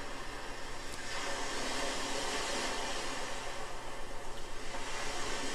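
Steady rushing hiss of a stainless-steel steam-distillation still with its water boiling on an electric hot plate, over a faint low hum.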